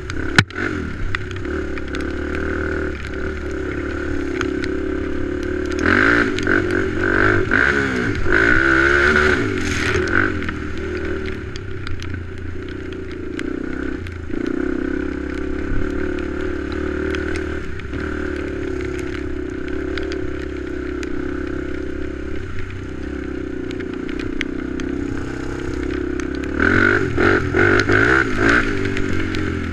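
ATV engine running as it drives along a trail, its pitch rising and falling as it revs harder about six seconds in and again near the end. A single sharp knock comes just after the start.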